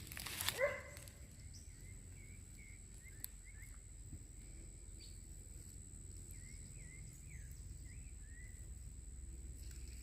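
A brief rustle, then one rising call about half a second in. After it come faint, short high chirps, repeating irregularly every half second or so, from a small animal.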